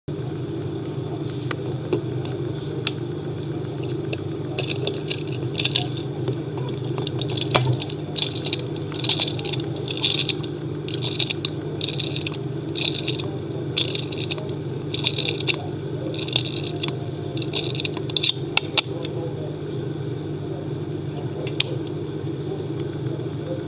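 A 1970s Sutcliffe Sea Wolf tin-plate submarine's clockwork motor being wound up by hand, a regular run of short winding clicks about two a second over a steady low hum.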